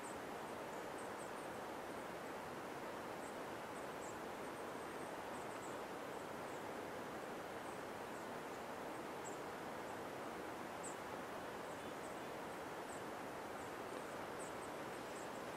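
Quiet forest ambience: a steady, even hiss with scattered faint, very high chirps.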